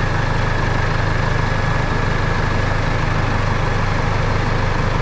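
Flatbed tow truck's engine idling steadily, heard from inside the cab, with a faint steady high tone above the low rumble.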